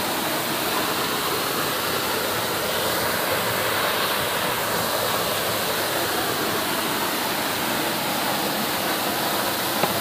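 Waterfall heard from right beside the falls: a steady, even rush of falling water and spray striking rock.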